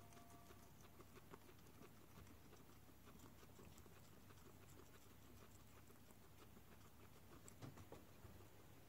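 Two guinea pigs chewing fresh herb sprigs: faint, irregular little crunching clicks, with a few louder ones near the end.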